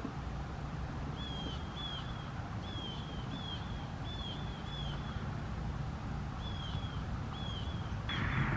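A bird calling with short, high chirps, mostly in pairs, repeated every second or so over a low background rumble. A hiss of noise comes up near the end.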